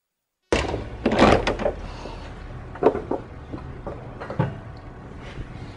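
Cub Cadet CC999ES walk-behind lawn mower being tipped onto its side on a work table: a loud scraping clatter about a second in, then a few separate knocks and clunks as it settles.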